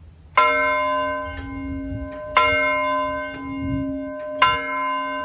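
Large hanging bell rung by hand: three loud strikes about two seconds apart, each ringing on, with softer strikes in between.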